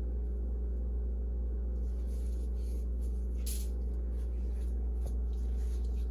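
Steady low hum, with a few faint short shakes of seasoning being sprinkled from a container about two and three and a half seconds in.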